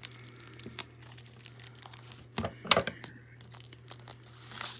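Plastic cling film (saran wrap) being crinkled and pulled off a package, in short bursts about halfway through and again near the end.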